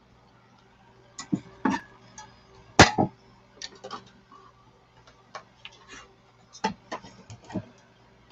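Irregular clicks and light knocks of small things being handled at a craft table, the loudest about three seconds in, over a faint steady hum.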